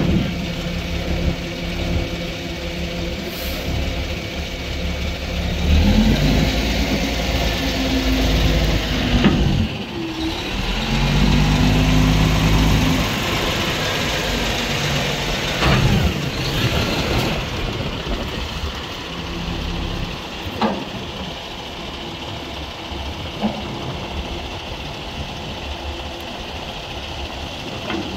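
Kenworth T800 dump truck's diesel engine running at idle, speeding up about six seconds in and again for several seconds in the middle while it drives the hydraulic hoist that raises and lowers the dump body. A few short clanks are heard along the way.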